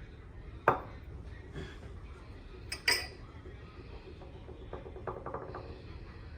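A measuring spoon and spice containers clinking against a mixing bowl while spices are measured in: two sharp clinks about two seconds apart, then a quick run of light taps near the end.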